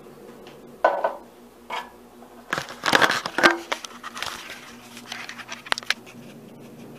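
Handling noise: knocks, rustling and clicks as the camera is jostled and a TV remote is picked up and used, with the loudest clatter about two and a half to three and a half seconds in and a few sharp clicks near the end, over a faint steady hum.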